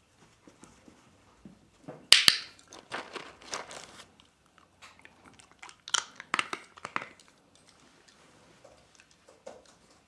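Jack Russell terrier crunching and chewing a dry treat, in two bouts of quick crunches, the first about two seconds in and the louder, the second about six seconds in.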